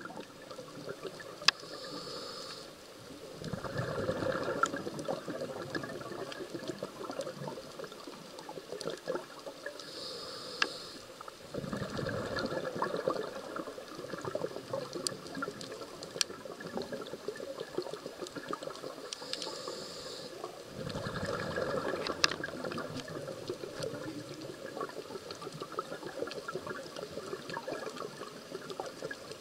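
Scuba diver breathing through a regulator underwater: a short hissing inhale followed by a longer bubbling exhale, repeating about every nine seconds, three times. A few sharp clicks occur in between.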